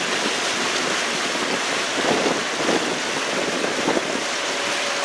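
Wind buffeting the microphone on the open deck of a moving passenger boat, with water rushing along the hull, a steady noise. A faint steady tone comes in near the end.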